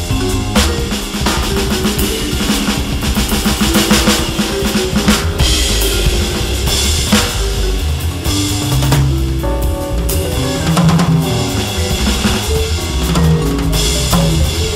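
Roland V-Drums electronic drum kit played as a jazz four-beat, its sound coming from the drum module's sound set rather than the rubber pads, over a sequencer backing with a walking bass line.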